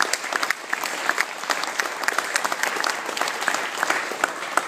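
Audience applauding: dense, steady clapping from a room full of people.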